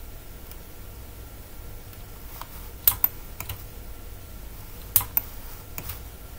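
About eight sharp clicks from a computer mouse and keyboard, several in quick pairs, over a faint steady low hum.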